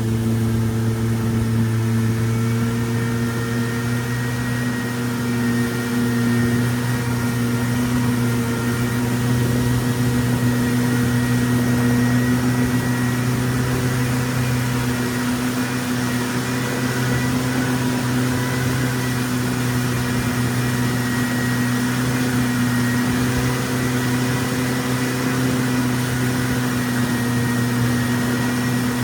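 Boat engine running at a steady speed, giving an even drone.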